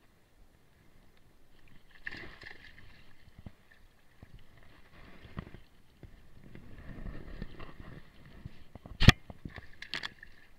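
Water splashing and sloshing against a float tube as a hooked fish is landed by hand. There is a sharp knock about nine seconds in and a couple of smaller clicks just after.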